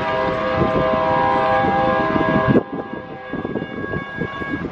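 A freight locomotive's horn chord and the grade crossing's warning bell sound over the noise of the passing train. The horn and most of the train noise stop abruptly about two and a half seconds in, leaving a single high bell tone that runs on until near the end.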